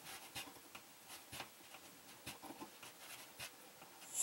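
Faint, irregular clicks and scratches of fingers turning the handle of a saddle valve clamped on a PEX water line, screwing its piercing needle in.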